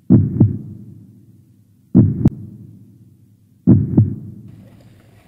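Deep double thumps like a heartbeat, three pairs about two seconds apart, each pair dying away slowly: a heartbeat-style intro sound effect.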